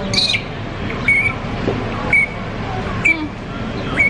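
A bird calling over and over, a short sharp call about once a second, over a steady low background rumble.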